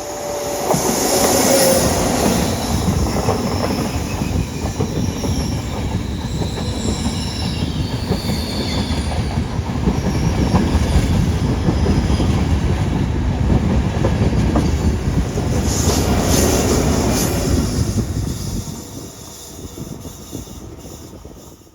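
Train running through the station with a heavy rolling rumble. High-pitched wheel squeal sounds through the first half, and the noise falls away about nineteen seconds in.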